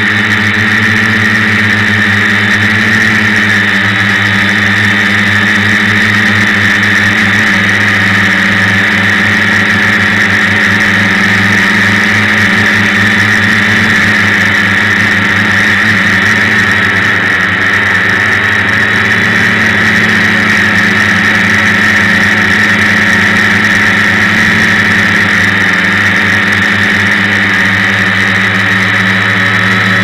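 Electric motors and spinning propellers of a multirotor drone in flight, heard from the camera mounted on the drone: a loud, steady buzzing whine made of several held tones.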